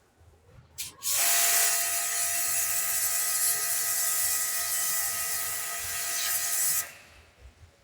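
Pressure washer spraying a mountain-bike chain: the jet's hiss with the steady whine of the washer's motor and pump, starting about a second in and cutting off suddenly near the end.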